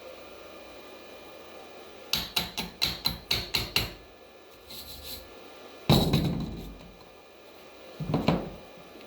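A chipping hammer striking a fresh 7018 stick weld to knock the slag off: a quick run of about eight sharp metal taps, then two heavier blows about two seconds apart, the first ringing out briefly.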